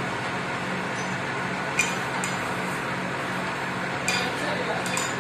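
Metal lathe running while the cutting tool faces a large steel disc: a steady machine hum that pulses about three times a second. Sharp metallic clinks come about two seconds in and again twice near the end.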